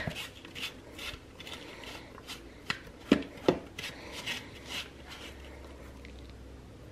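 Crumbly oat-and-butter crisp topping being spooned out of a plastic mixing bowl and scattered by hand over apple slices in a slow cooker. It makes soft scraping and rustling, with a few light clicks of the spoon about three seconds in.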